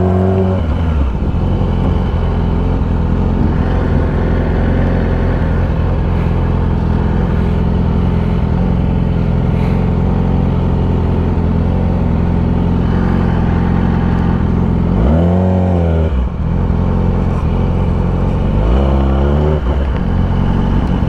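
Motorcycle engine running steadily at low speed, blipped twice in short revs that rise and fall, about fifteen and nineteen seconds in.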